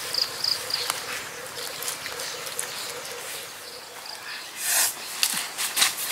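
Outdoor woodland ambience: a steady insect drone with three short high chirps in the first second. Near the end come rustling and crackling of dry leaves as someone moves over the leaf litter.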